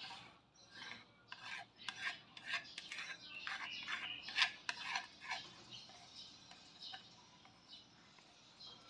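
A spoon scraping ground chilli spice paste out of a shallow wooden mortar: a quick run of short scrapes and knocks that thins out after about five seconds.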